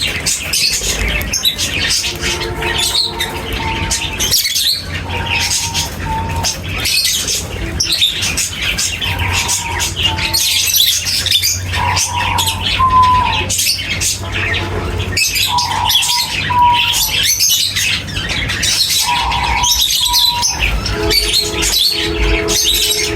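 Many small birds chirping and twittering densely at feeding time, with squawks and short, lower calls repeating every second or two.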